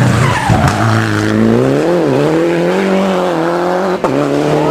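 Rally car's engine at high revs as the car takes a hairpin. Its pitch drops sharply near the start, dips again about two seconds in, then holds steady, with one short sharp crack about four seconds in.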